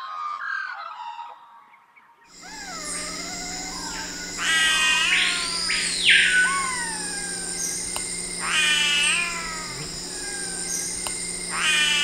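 Great jacamar giving a series of drawn-out, cat-like mewing calls, each rising and then falling in pitch. Before them, for about the first second and a half, comes the end of an Australian magpie's warbling song, which then cuts off.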